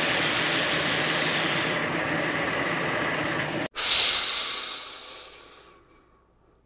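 A long, loud hiss that cuts off abruptly partway through, followed by a second hiss that fades away over about two seconds.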